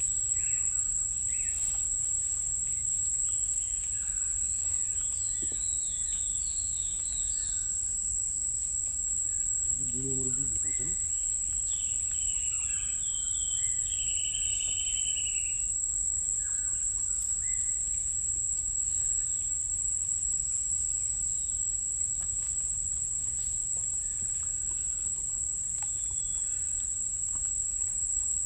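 Mangrove forest ambience: insects keep up one steady high-pitched drone, with scattered bird chirps and two longer runs of rapid chirping. A short low call sounds about ten seconds in, over a faint low rumble.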